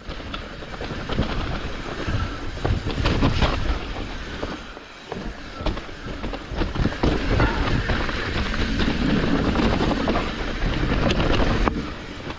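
Hardtail mountain bike riding a rough downhill trail: tyres rumbling over dirt and rocks, with the chain and frame rattling and knocking over bumps, and wind on the microphone.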